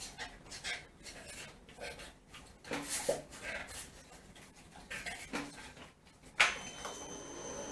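Dog nosing in the plastic funnel of an iFetch automatic ball launcher, making scattered light plastic clicks and knocks. About six seconds in there is a sudden clunk, and the launcher's motor starts running with a steady hum and a thin high whine as it readies to throw the ball.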